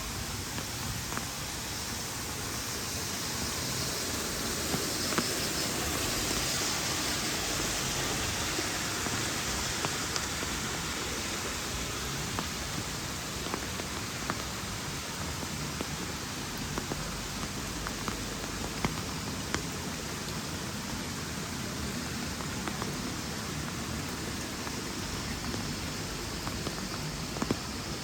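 Steady rain falling, an even hiss that swells slightly a few seconds in, with scattered single sharp ticks now and then.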